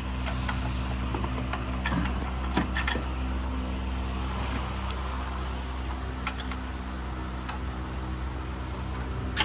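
Scattered light metallic clicks and taps of hand work around a turbocharger in an engine bay, over a steady low machine hum. The clicks come singly and in small clusters, a few in the first three seconds and a sharper one near the end.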